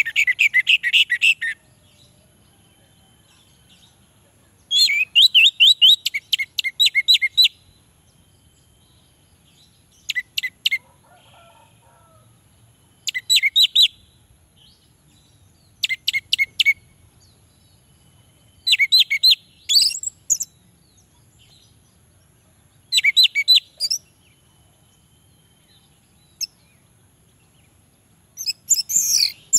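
Orange-headed thrush singing: about eight short bursts of fast, varied, high warbling phrases, with pauses of a second or more between them.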